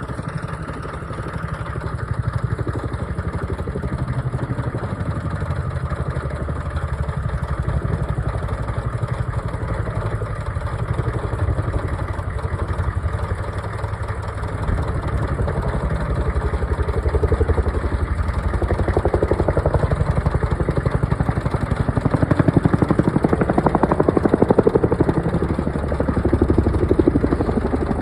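Tandem-rotor CH-47 Chinook helicopter flying, a fast steady rotor chop over turbine noise, getting louder in the second half.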